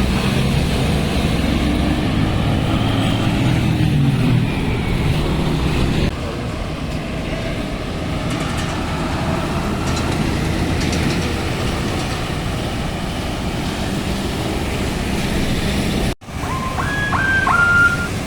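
Bus engine and road noise as a large bus goes by, its pitch rising and falling over the first few seconds before the sound drops abruptly to a steadier, quieter run. Near the end a multi-note 'telolet' bus horn starts playing a stepped tune.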